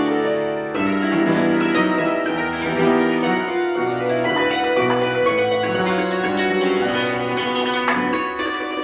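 Cimbalom played with hammers: a steady stream of quick struck notes that ring into one another, part of a set of variations.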